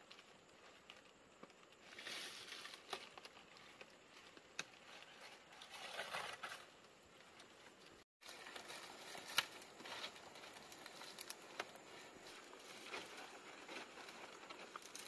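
Dry leaf thatch rustling and crackling as it is handled and laid onto a bamboo roof frame, with scattered light clicks and taps.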